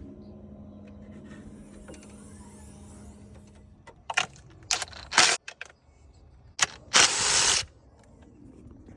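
A low steady hum for the first three seconds or so, then a handful of sharp mechanical clacks and a loud half-second rasping burst about seven seconds in.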